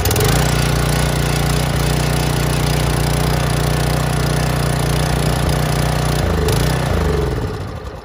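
Small gasoline engine of a Generac electric-start pressure washer running at a steady speed, just started on its push-button electric start, which has never worked before. About six seconds in, it slows and winds down.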